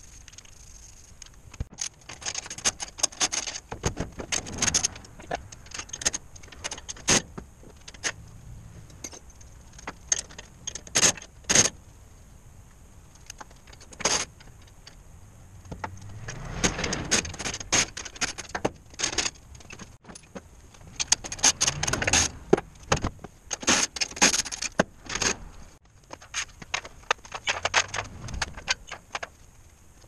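Metal tools and parts clinking and rattling in bursts of sharp clicks, with quieter gaps between.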